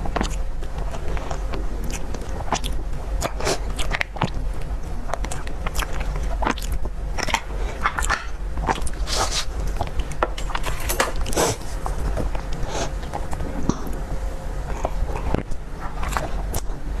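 Close-miked eating of a dessert: a person biting and chewing, with many quick, irregular sharp clicks and crackles over a steady low hum.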